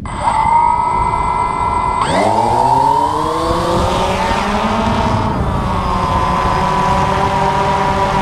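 DJI Phantom FC40 quadcopter's motors and propellers starting up with a steady whine, then spooling up sharply about two seconds in with a rising pitch as the drone takes off. They settle into a steady whine in flight.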